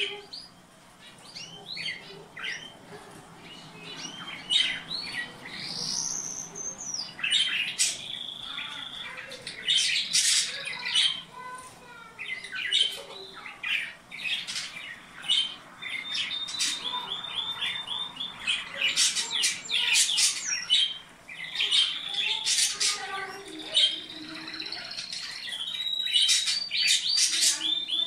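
Domestic canary singing a long, varied song of chirps, whistled glides and rapid rolling trills. The trills are runs of evenly repeated notes, heard about halfway through and again near the end.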